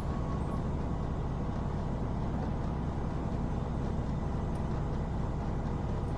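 Semi truck driving on the road: steady low engine and road noise.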